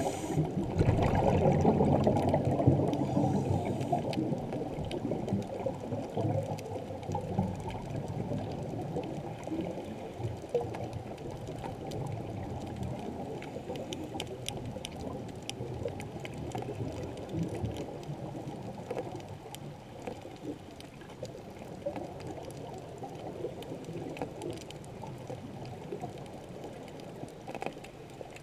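Muffled underwater noise heard through a camera's waterproof housing: a low rushing of moving water, louder over the first few seconds and then settling steadily. Scattered faint clicks run through it.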